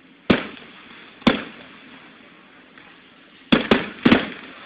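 Aerial firework shells bursting: two sharp bangs about a second apart, then a quick run of four bangs near the end, each trailing off briefly.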